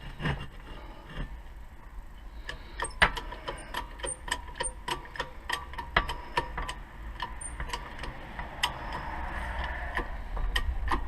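Metal tool work while a wheel bearing is pressed into a car's front hub: irregular sharp metallic clicks, with a rougher rasping noise building in the last few seconds as the bearing goes in.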